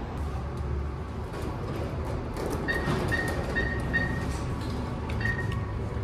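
Self-service card-issuing kiosk beeping: four short, evenly spaced high beeps about three seconds in, and one more near the end, over a low steady rumble.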